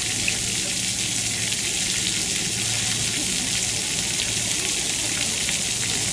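Ground-level water jets of a splash-pad fountain spraying up and pattering onto wet paving, a steady hiss, with a low steady hum underneath.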